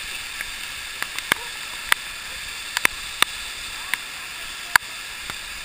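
Waterfall pouring down as a steady hiss, close to the camera, with about ten sharp, irregular clicks from water drops and splashes striking near the microphone; the loudest comes near the end.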